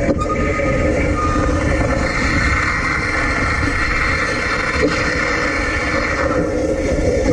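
Running noise of an electric tram heard from a camera on its trolley pole: a steady rumble of wind on the microphone with the hum and hiss of the trolley collector running along the overhead wire.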